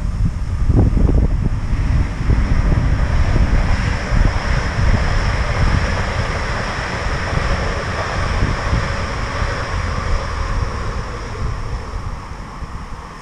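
Wind buffeting the action camera's microphone while it moves along at speed, with a rumbling haze of passing road traffic that swells through the middle and fades near the end.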